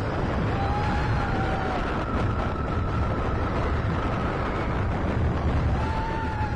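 Roller coaster ride heard from the train: a steady loud rumble of wheels on track and wind on the microphone, with a high held tone over it in the middle.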